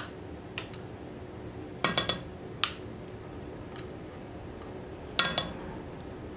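Measuring spoon clinking and tapping against a jar of minced garlic as teaspoonfuls are scooped into the pot, in short bunches of sharp clinks every couple of seconds.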